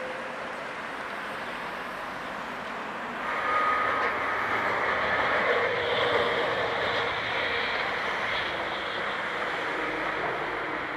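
Steady street traffic noise, then, abruptly louder from about three seconds in, a tram rolling past on its rails, with a brief high steady whine soon after it starts.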